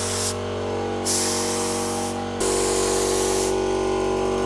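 Compressed-air spray gun hissing in bursts as PVA release agent is sprayed onto a fiberglass mold. Under it runs a steady hum of low tones that shifts about halfway through.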